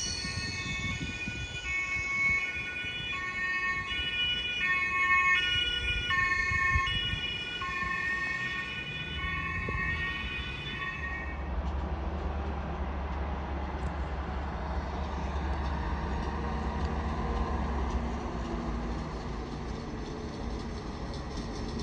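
Emergency vehicle's two-tone siren alternating between two pitches, stopping about eleven seconds in. A train's low, steady rumble follows.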